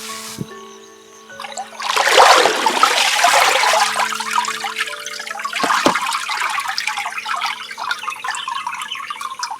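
Water pouring and splashing, starting suddenly about two seconds in and running on as a trickle. Background music with held tones lies underneath, and two short knocks come near the middle.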